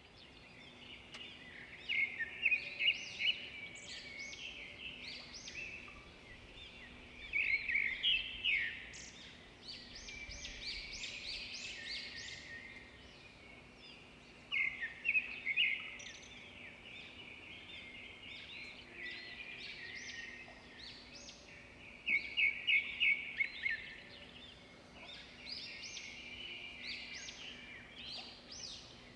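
Small birds chirping in repeated flurries of quick, high chirps every few seconds, over a faint steady low hum.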